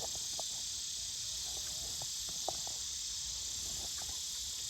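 Steady chorus of crickets and other insects, a continuous high-pitched buzz, with a few faint clicks over it.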